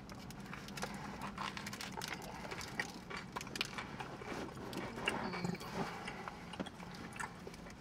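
Faint chewing of a bite of sub sandwich, with irregular soft clicks and crackles as the sandwich is handled.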